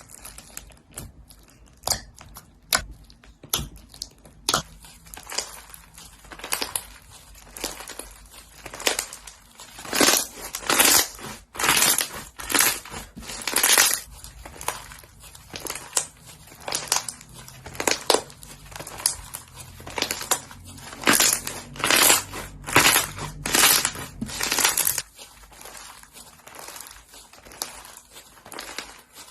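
Slime being squeezed and pressed by hand, giving a string of short crunching, crackling squishes about one or two a second. They grow louder through the middle and fall away near the end.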